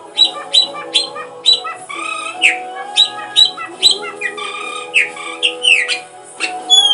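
Bird-like squawks and chirps, many falling quickly in pitch, repeated two or three times a second over steady held musical tones.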